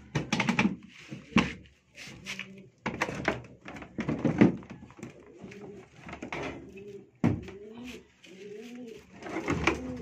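A bird cooing several times in low calls that rise and fall, from about halfway on, among loud knocks and rattles from hands working on an opened washing machine.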